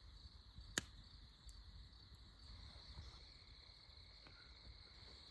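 Faint, steady chirring of insects, most likely crickets, with one sharp click about a second in and a few fainter ticks after it.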